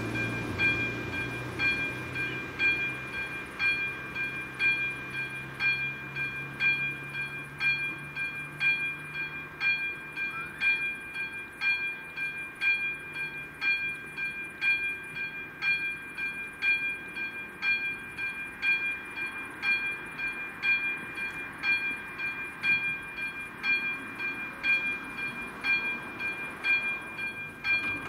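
Level-crossing warning bell ringing at a quick, even rhythm, a bright metallic ding with each strike, while the crossing's warning lights flash: the crossing is closing for an approaching train.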